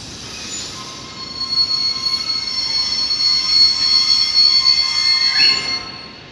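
Freight train of tank wagons rolling past with its wheels squealing: several steady high-pitched screeches that swell a second and a half in and hold, with a brief rising squeal just before they die away near the end.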